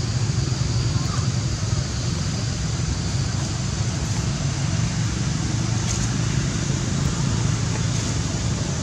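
Steady outdoor background noise: a constant low rumble under an even hiss.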